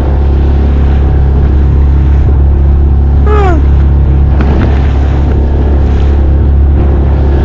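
Outboard motor of an inflatable boat running steadily under way across choppy sea, with wind and water noise. A brief falling voice cuts in about three seconds in.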